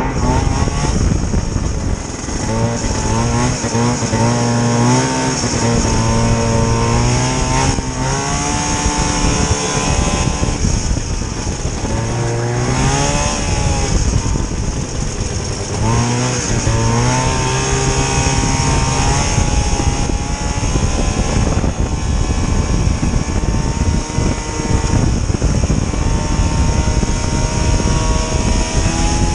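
Vintage snowmobile's small two-stroke engine running and revving up and down repeatedly, its pitch rising and falling several times before settling to a steadier speed near the end.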